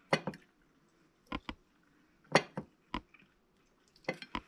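Utensil clinking against a plate: a series of short, sharp clinks in small groups while eating.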